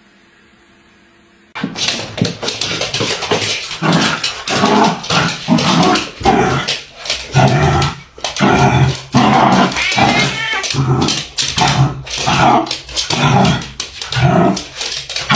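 A dog barking and growling in loud, rapid bursts, one or two a second, as it play-fights with a cat. The barking starts suddenly about a second and a half in.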